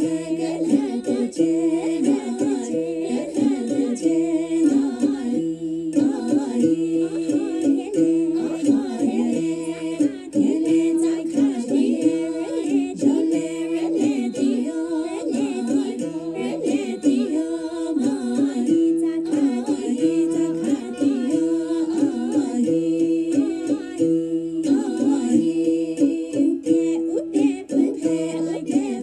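Women's voices singing a traditional Naga Li song in close harmony, accompanied by the tati, an old one-stringed Naga instrument. The melody moves in a regular, repeating figure about once a second.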